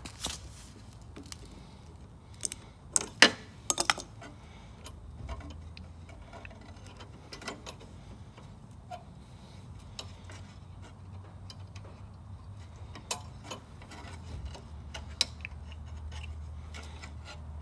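Scattered small metallic clicks and taps of hands handling the carburettor and its linkage on a Briggs & Stratton Quantum lawn mower engine, with a quick cluster of sharper clicks about three to four seconds in.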